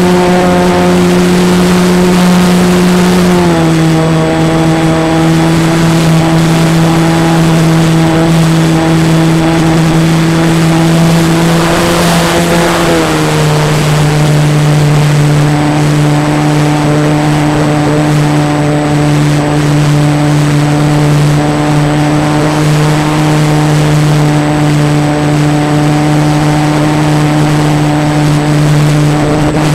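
RC plane's motor and propeller running steadily in flight, heard from the onboard camera, a drone with a whine above it. The pitch steps down twice, about three and a half seconds in and again about thirteen seconds in, over a constant rush of wind that swells briefly around twelve seconds in.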